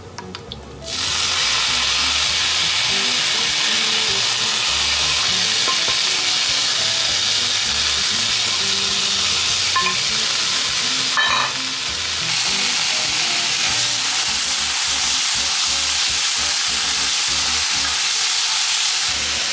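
Miso and sautéed parsley sizzling in a hot oiled frying pan, stirred with a spatula. The sizzle jumps up about a second in as the miso goes into the pan, then holds steady, with a brief dip a little past halfway.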